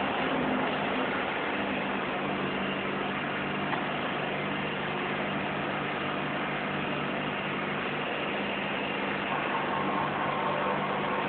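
Forklift engine running steadily while the hydraulic paper roll clamp rotates its arms; a higher steady whine joins about nine seconds in.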